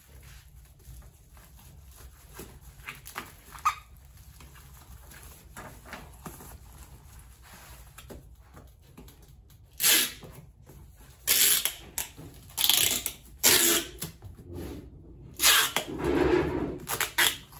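Card packaging being wrapped round an item: soft handling rustles, then from about ten seconds in a run of loud, short crackling rustles as the card is folded and worked.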